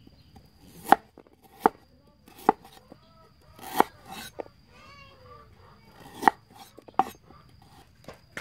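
Kitchen knife chopping ginger on a thick wooden chopping board: about six sharp, separate knocks, with a pause about halfway through.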